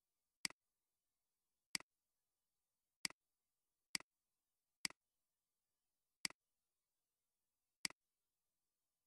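Computer mouse clicks: seven sharp, irregularly spaced clicks, each a quick press-and-release double click, with silence between them.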